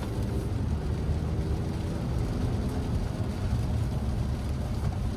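Steady low rumble of road noise inside the cabin of a 2024 Acura TLX driving on a rain-soaked road in heavy rain.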